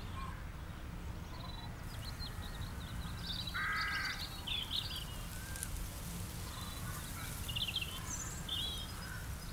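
Forest birds chirping in short, scattered calls, with one longer, lower call about three and a half seconds in, over a steady low background rumble.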